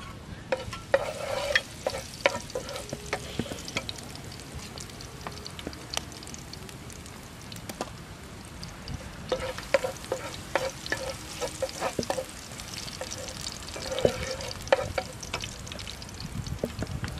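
Chopped garlic sizzling in a frying pan, with bursts of clinks and scrapes from a spatula stirring against the pan three times.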